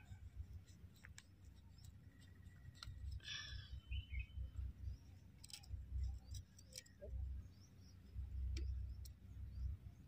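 Faint sharp clicks and scrapes of a small blade cutting and cleaning a sheep's overgrown hoof between the claws, over uneven low rumbling from the handling.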